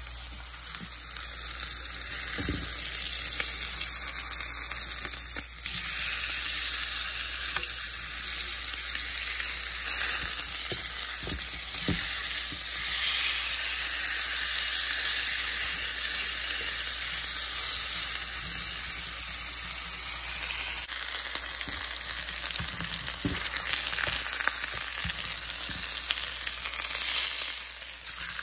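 Chicken breasts sizzling steadily as they fry in olive oil in a ceramic nonstick frying pan, with a few soft knocks as a fork turns the pieces.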